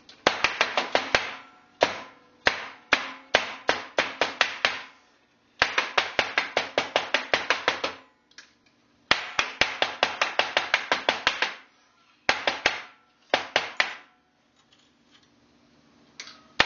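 Steel binding wire being straightened by beating it with a block of wood on a flat bench: quick runs of sharp knocks, several a second, with short pauses between the runs.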